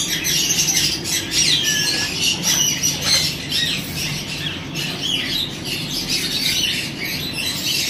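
Caged parrots squawking and chattering together, many short high calls overlapping with no break, over a steady low hum.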